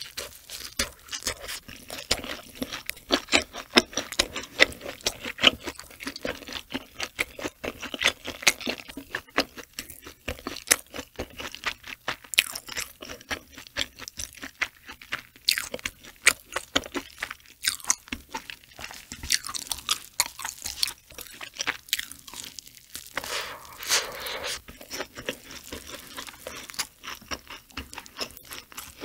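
Close-miked chewing of cooked octopus eggs, a dense run of short, sharp mouth clicks.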